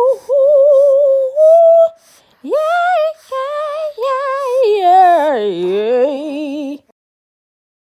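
A woman singing wordless, drawn-out notes in a high voice with a wide vibrato, in several phrases. The last phrase slides down low before the voice stops abruptly about two-thirds of the way in.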